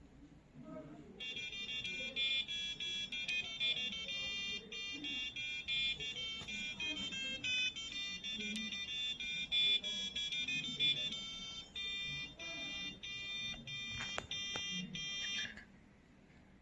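A homemade STM32 alarm clock's buzzer plays its alarm as a melody of short beeped notes. The melody starts about a second in and stops about a second before the end.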